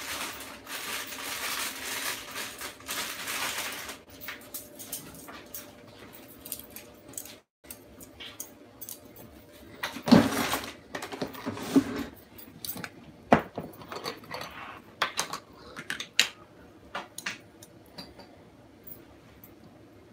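A steady hiss for the first four seconds or so, then kitchen cutlery clattering with scattered sharp clicks and knocks as utensils are taken from a kitchen drawer and handled among plates.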